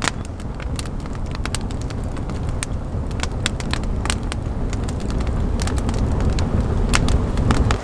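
Wood campfire crackling, with many sharp pops and snaps scattered over a steady low rumble that swells near the end and then cuts off.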